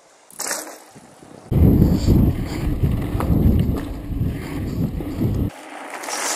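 Wind buffeting a bike-mounted camera's microphone while riding down a dirt trail: a loud, low rumble that starts abruptly about a second and a half in and cuts off shortly before the end. Near the end comes a short rushing whoosh as the bike passes close.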